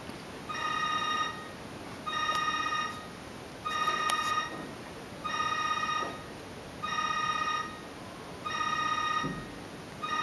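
An electronic ringer sounding a chord of steady high tones in even pulses, each about three-quarters of a second long with equal gaps, repeating about every second and a half.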